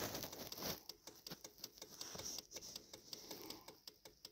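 Faint, fast, even ticking, about five ticks a second.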